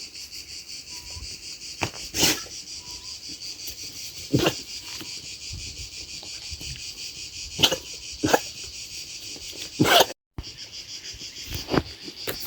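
Young sheep sneezing: about five short, sharp nasal sneezes spread over the stretch. Crickets chirp steadily underneath.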